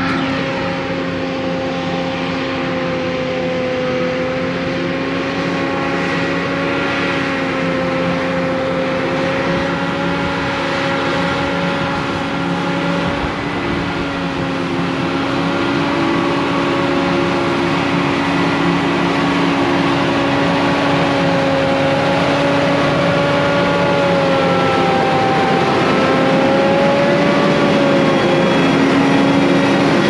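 Farm machinery running steadily, a diesel tractor engine and forage harvesting equipment, with a continuous hum whose pitch drifts slightly.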